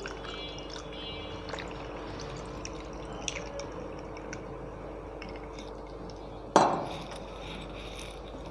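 Tea pouring from a stainless steel jug over ice cubes in a glass mug, with faint clinks of ice against glass. About six and a half seconds in, a single loud knock as the steel jug is set down on the wooden counter.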